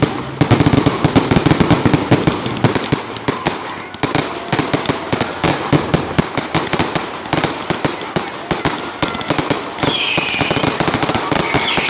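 Fireworks going off in quick succession: a dense run of crackling bangs and pops, many a second, thickest over the first few seconds.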